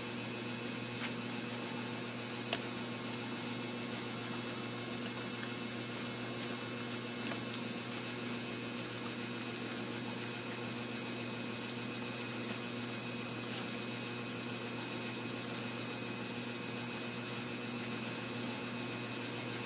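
Steady background hiss with a low electrical hum (room tone), broken once by a single small click about two and a half seconds in.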